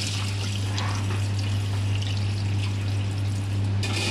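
Tap water pouring and trickling as split chickpeas (chana dal) are rinsed in a plastic bowl and drained into a steel sink. A steady low hum runs underneath.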